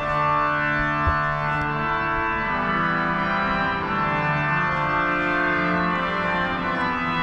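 Organ playing slow, sustained chords that begin suddenly and change a few times.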